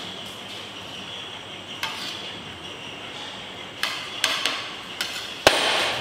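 Steel plates and serving vessels clinking and knocking against each other and the table a handful of times as food is served, the sharpest knock near the end.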